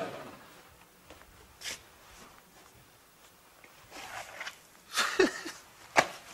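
Quiet room tone broken by a few soft rustles, a brief vocal sound falling in pitch about five seconds in, and a sharp click just after six seconds.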